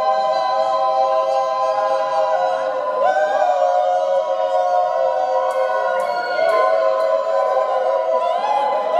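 A group of voices singing together in long held notes, with slides up into new notes now and then.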